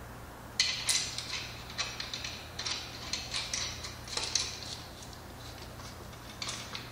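Nut being tightened onto the bolt of the wheel lock's swivel arm: a run of sharp metallic clicks, a few a second at uneven spacing, starting about half a second in and lasting about four seconds, with a couple more near the end.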